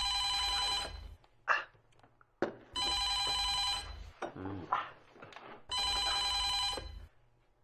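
Telephone ringing: three rings about three seconds apart, each lasting a little over a second.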